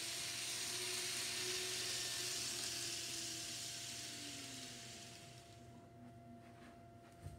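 N scale model passenger train running past on the layout track: a rolling hiss of wheels and motor, with a faint motor whine that rises and falls, swells and fades away over about five seconds. A steady faint hum underneath, and a short click near the end.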